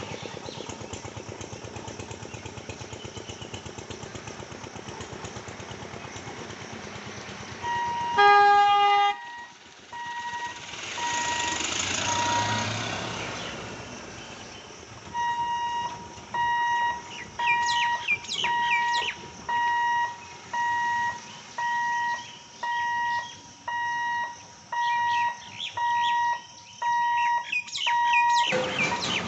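Diesel locomotive engine running with a steady pulsing rumble, then a loud horn blast about eight seconds in, lasting about a second and a half. A rushing sound swells and fades, and an electronic warning alarm beeps about once a second for the rest.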